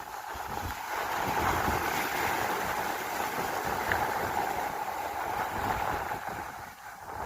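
Wind buffeting the microphone, with the steady wash of the sea behind it.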